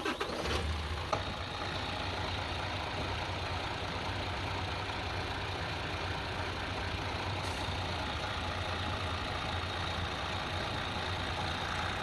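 Isuzu 6HK1 inline-six diesel truck engine catching at the end of cranking about half a second in, then idling steadily, after its injectors have been refitted and the air bled from the fuel lines.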